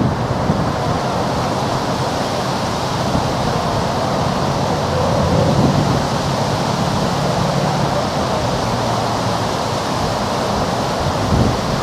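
Steady rushing noise of wind on the microphone and water, with a faint low hum that comes in a few seconds in and fades near the end.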